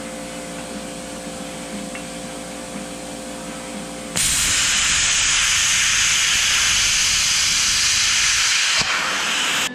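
A steady machine hum, then about four seconds in a loud, even sizzling hiss starts abruptly and holds for about five seconds before cutting off suddenly: a Lincoln flux-core wire-feed welder laying a bead.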